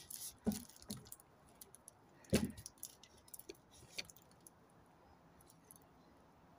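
A few short knocks and clicks: a dull knock about two and a half seconds in is the loudest, with lighter clicks around it. After that only faint ticks remain.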